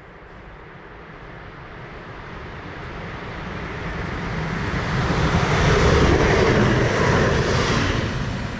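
Electric passenger train running along the track, its rumble and rail hiss building steadily to a peak about six seconds in, then fading.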